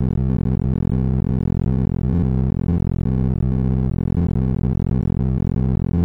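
Heap-sort sonification: a rapid, unbroken stream of short synthesized tones, one for each array access, whose pitch follows the values being compared and swapped. The tones stay low-pitched because only the smallest values are left in the heap.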